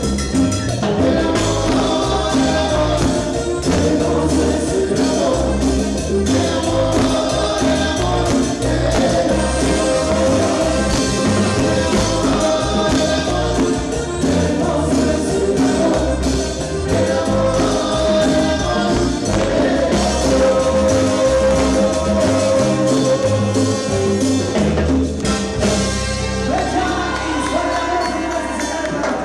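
Cumbia band playing live with a steady percussion beat; near the end the drums stop and a held chord rings out.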